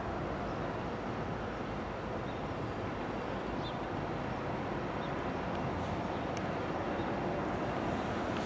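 Diesel locomotives of a Norfolk Southern freight train approaching slowly, a steady engine rumble that grows gradually louder.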